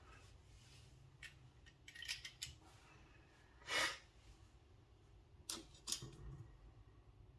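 Small clicks and taps of pocket-knife parts and a small tool being handled during reassembly, with one louder short scrape a little before the middle.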